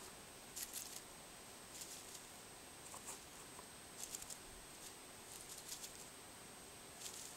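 Faint crackling rustles of dry leaves and twigs in short clusters, about one every second or so, over a faint steady high-pitched whine.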